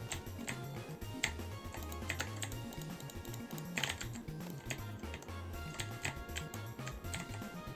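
Keystrokes on an Altec Lansing ALGK8614 mechanical keyboard with red switches, pressed at an irregular pace, over background music with a bass line.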